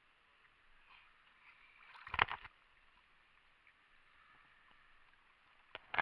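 Lake water lapping at the surface, with a brief splashing gurgle about two seconds in and a couple of sharp knocks near the end.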